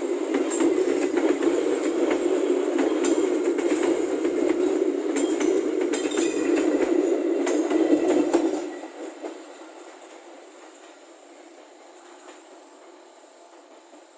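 Train running through at high speed, with quick clacking of wheels over the rail joints. The noise drops sharply a little past halfway as the end of the train passes, leaving a fading rumble.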